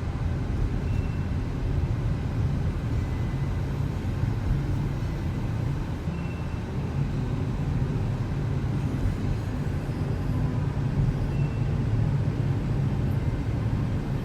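Car on the move, a steady low rumble of engine and road noise that holds even throughout.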